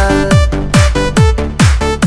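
Electronic dance music remix: a steady four-on-the-floor kick drum, a little over two beats a second, with short synth notes between the beats and no singing.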